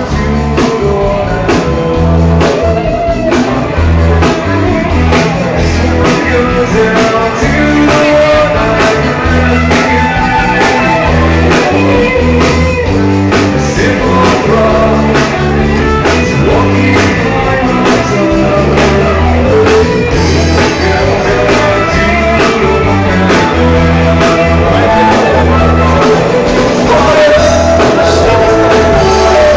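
Live band playing a song with a drum kit keeping a steady beat, and men singing into microphones over it.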